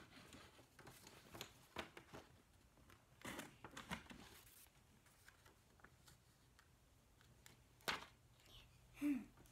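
Sheets of paper rustling as they are handled, with scattered soft knocks and one sharp click about eight seconds in.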